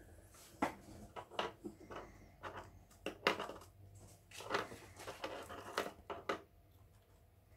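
Pet rats moving about their wire cage: irregular light clicks, knocks and scrabbles as their claws catch on the hanging plastic tube, the hammock and the bars, dying down near the end.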